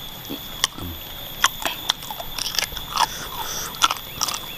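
Close-miked mouth sounds of a person eating meatball soup with chicken feet: chewing, biting and crunching, with irregular sharp clicks and smacks.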